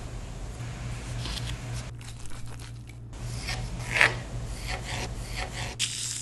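Hands handling and scraping soft sweet-bread dough on a floured wooden board: a run of short rubbing and scraping sounds, the loudest scrape about four seconds in, over a steady low hum.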